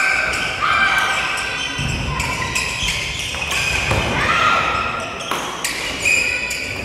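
Badminton play in a large sports hall: sharp clicks of rackets striking shuttlecocks and short high squeaks of court shoes on the wooden floor, repeated throughout and ringing in the hall.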